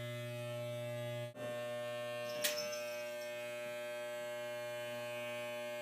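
Electric hair clippers buzzing steadily while shaving hair from the side of a head. The buzz dips briefly about a second and a half in, and there is one sharp click about two and a half seconds in.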